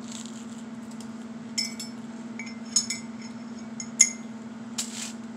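Several sharp clinks of a metal utensil against crockery, each ringing briefly, the loudest about four seconds in, with soft crunching of toast being bitten and chewed. A steady low hum runs underneath.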